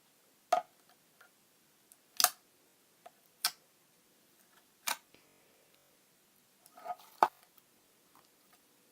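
Clear slime being squeezed and pressed, giving sharp pops and clicks as air pockets burst: five loud ones one to two seconds apart, with softer clicks between.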